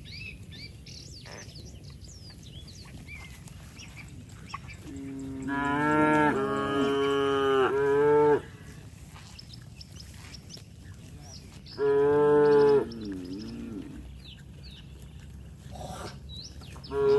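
Cows mooing: a long, loud moo about five seconds in lasting about three seconds, a shorter one around twelve seconds with a wavering tail, and another starting near the end.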